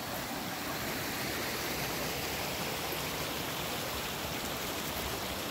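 Small forest creek running full after recent rains, a steady rush of flowing water.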